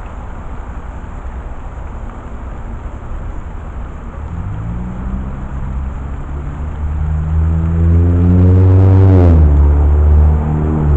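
A motor vehicle's engine over a low rumble: from about four seconds in it grows louder and rises in pitch, then its pitch drops sharply about nine seconds in as it passes or shifts.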